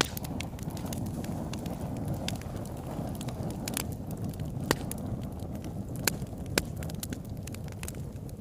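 Wood fire crackling in a fireplace: a steady low rush of burning under many small crackles, with three louder sharp pops in the second half.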